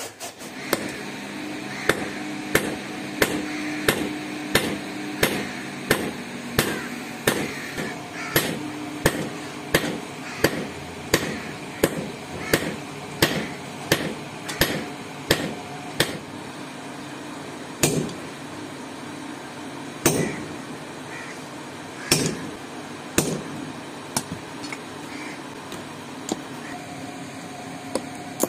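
Hand hammer striking red-hot steel on a block anvil: a claw hammer head being forged into an axe. Blows come in a steady rhythm of about one and a half a second for the first half, then a few single blows spaced a second or two apart, with a steady hum under the first half.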